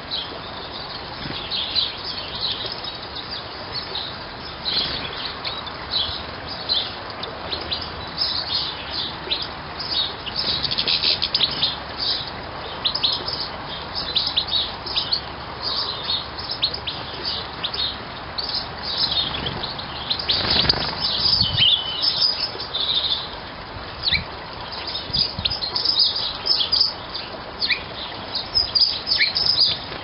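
Goldfinches twittering and chirping in quick, dense runs of short high notes, with a brief rushing noise about twenty seconds in.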